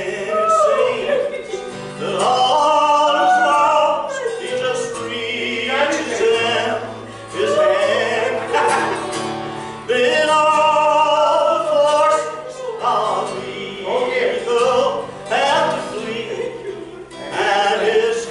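A man singing a gospel song with vibrato, accompanied by acoustic guitar.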